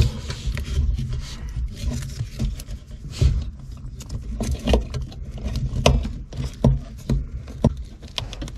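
A plastic wiring connector and its wires being handled and plugged into an electronic accelerator pedal: irregular small clicks and knocks over low bumping handling noise.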